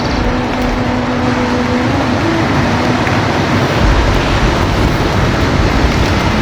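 Sea waves making a continuous rushing wash. A steady low hum sits under it for the first two seconds, and a low rumble builds about four seconds in.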